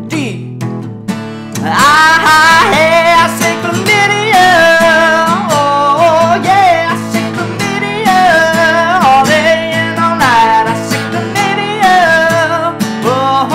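A man singing with his own strummed acoustic guitar accompaniment. The voice comes back in after a short lull about a second and a half in, with long held notes between the phrases.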